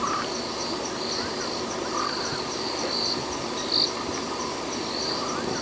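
Night insect chorus: a steady high-pitched cricket trill with brighter pulses every second or so, and short lower calls at intervals.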